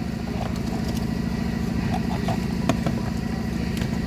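An engine idling steadily with an even, fast low pulse, and a few faint clicks over it.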